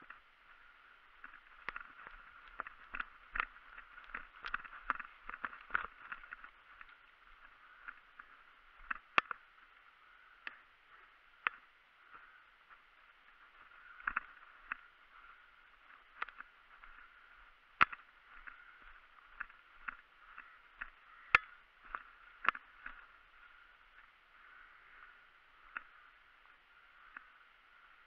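Muffled footsteps and rustling over frozen grass and dry fallen leaves, with irregular sharp clicks and snaps, a few of them much louder than the rest.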